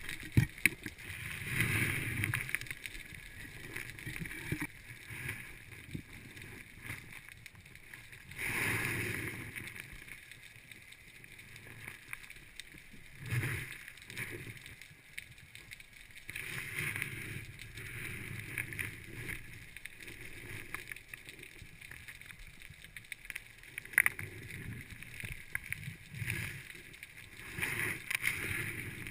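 Muffled underwater sound picked up through a camera housing: a bubbling rush every few seconds, with scattered sharp clicks and knocks in between.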